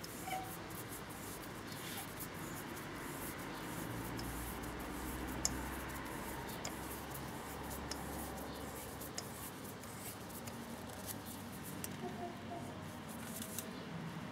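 Spark plug wrench being turned by hand on a spark plug in its well, giving faint scraping and scattered small metallic clicks.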